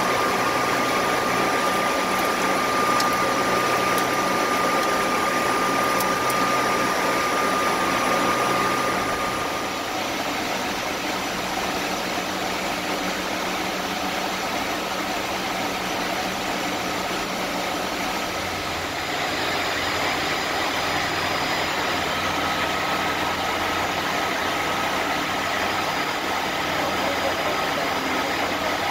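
Steady flight-deck noise inside a DC-9-14 airliner: rushing air and the hum of its Pratt & Whitney JT8D turbofan engines. A thin steady whine runs through the first ten seconds or so, and a deeper engine hum comes up about two-thirds of the way through.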